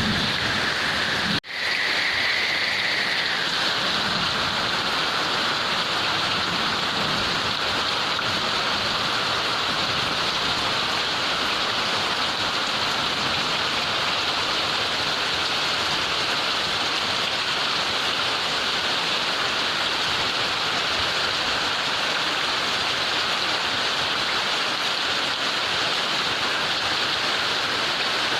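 Heavy rain pouring steadily, a dense even hiss of rain on surfaces, broken by a brief drop-out about a second and a half in.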